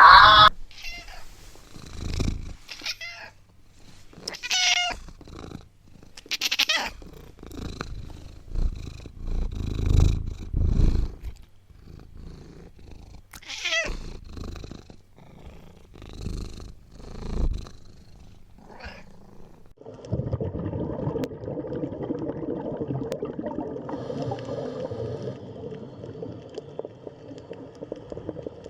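Domestic cat meowing several times, with low purring; from about twenty seconds in, a steady continuous purr.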